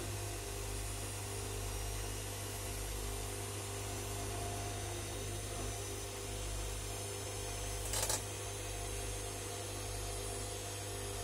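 Bosch Classixx 6 front-loading washing machine running its wash, the drum turning a pillow through heavy suds with a steady motor hum and whine. A brief noise about eight seconds in.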